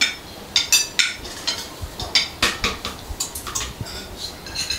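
Metal serving utensil clinking against a metal pot and dishes as food is served: a quick, irregular run of sharp clinks.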